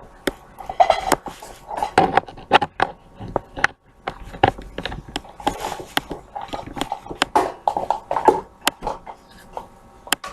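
Hands pressing, patting and stretching pizza dough on a floured work surface: irregular soft taps, knocks and rubbing.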